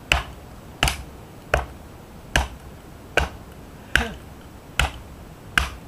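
A lump of wood used as a baton knocking on the spine of a large knife wedged in a log, driving the blade down to split the wood: eight sharp, evenly spaced knocks, about one every 0.8 s.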